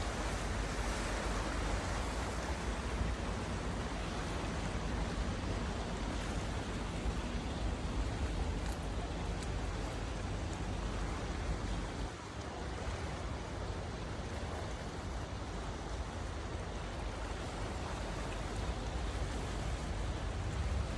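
Steady rush of sea surf and wind, with a low rumble underneath; it dips briefly about twelve seconds in.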